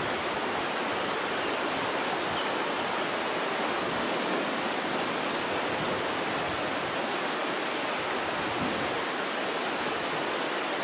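Steady, even rushing noise that does not change, like running water, with a faint brief rustle near the end.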